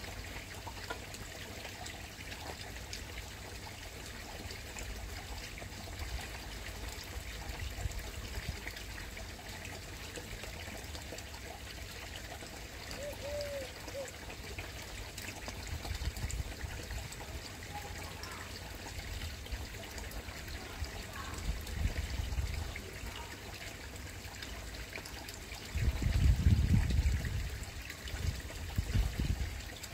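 Steady trickle of water running in a koi pond. Near the end, a louder low rumble for a couple of seconds.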